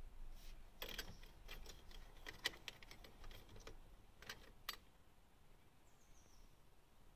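A run of about a dozen sharp, irregular clicks and ticks over some four seconds inside the cabin of a 2005 Volkswagen Polo that is not starting because of an ignition fault.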